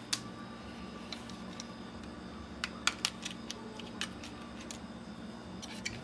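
Scattered small clicks and taps of plastic and metal parts as a camcorder's lens assembly is unscrewed and pried apart by hand, a cluster of sharper ones about three seconds in, over a steady low hum.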